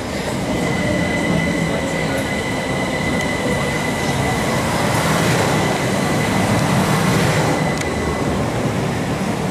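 Eight-car Southern class 377 Electrostar electric multiple unit running into the station: a steady rumble of wheels on rail with a thin, steady high whine that stops about a second before the end.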